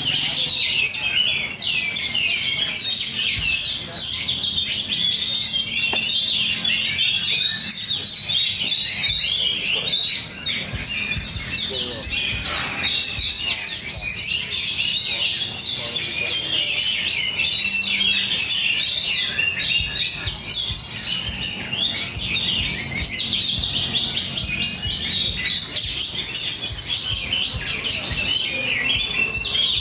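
Many caged songbirds singing at once in a competition round, a dense, unbroken tangle of quick high chirps and trills, over a low murmur of voices.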